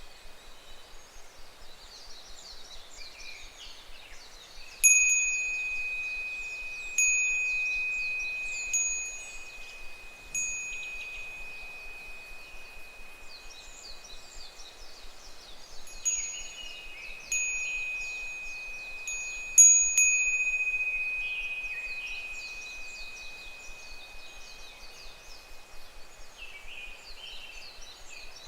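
Japanese wind bell (fūrin) struck by its clapper about seven times, each strike a clear ringing tone that fades slowly. Underneath, higurashi cicadas call continuously in short, repeated falling phrases.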